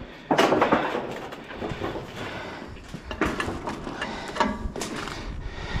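Metal scraping and clanking as an engine and transmission hanging by chain from an engine hoist are shifted onto a trailer. It starts suddenly just under half a second in, followed by further uneven scrapes and knocks.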